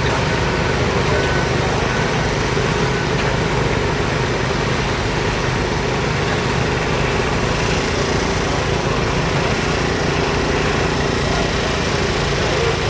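Engines of heavy construction machinery running steadily. A backup alarm beeps a few times at the start.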